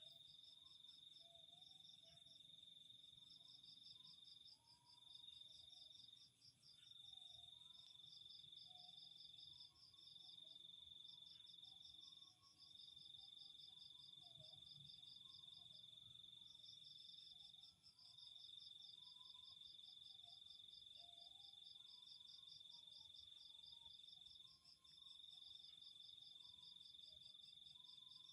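Faint night chorus of crickets and other insects: one steady high trill with a few brief breaks, a faster pulsing chirp just above it that stops and starts, and scattered soft lower calls.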